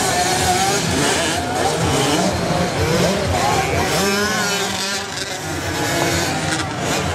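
Several small two-stroke kids' motocross bikes (50 and 65 cc) running on a dirt track, their engines revving up and down in pitch as they ride, overlapping one another.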